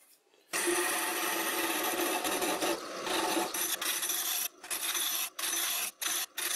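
Wood lathe turning a green oak handle, the turning tool cutting into the spinning wood with a steady rasping hiss over the faint hum of the lathe. It starts about half a second in and drops out briefly several times near the end.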